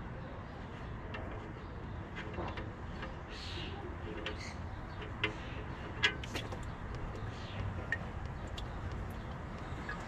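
Faint metal clicks and taps of a socket tool and hand working the engine-oil drain plug loose on a Kubota KX91 mini excavator, with a few sharp clicks in the middle, over a steady low outdoor rumble.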